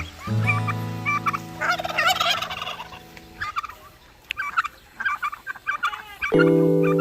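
Poultry calling: short repeated calls throughout, with a rapid warbling call about two seconds in. Background guitar music plays under them, drops out about halfway through and comes back near the end.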